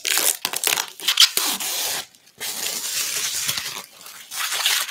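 Protective plastic film being peeled off the case of a new MSI Creator P100X mini PC, in long hissing pulls broken by short pauses about two seconds in and near four seconds.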